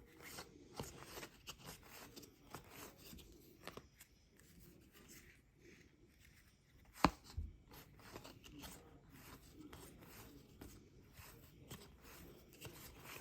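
Faint rustling and light ticks of trading cards being handled and flipped through, with one sharp click about seven seconds in.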